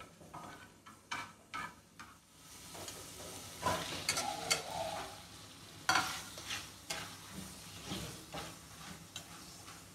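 Garlic paste sizzling in hot oil in a frying pan, stirred with a metal spatula that scrapes and knocks against the pan. A few seconds in, raw chicken pieces are pushed in from a plate and the sizzling grows louder, with more spatula scrapes and knocks as the chicken is stirred.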